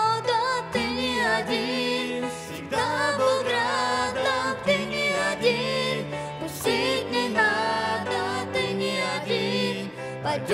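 Grand piano accompanying a man and a boy singing a Russian worship song, the voices wavering and gliding over held piano chords.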